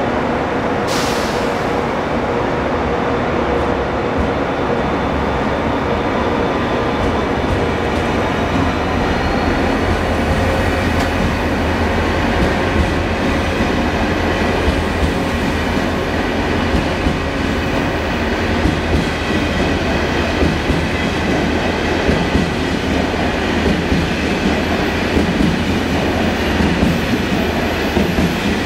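Train running at a station platform: a steady hum with several held tones, a short hiss about a second in, and a whine that rises in pitch about eight seconds in. The wheel noise gets more uneven in the second half.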